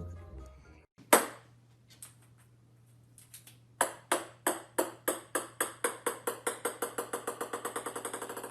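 Music fades out, then a sharp tap about a second in, and from about four seconds in a run of light ringing taps that come steadily faster and fainter, the pattern of a small hard object bouncing to rest.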